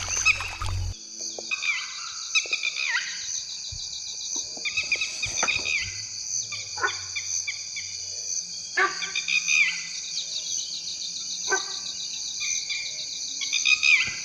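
Forest ambience at dusk: a steady, high-pitched insect chorus with a pulsing cricket, and birds calling again and again over it in short falling notes. Scattered soft knocks and clicks come through now and then.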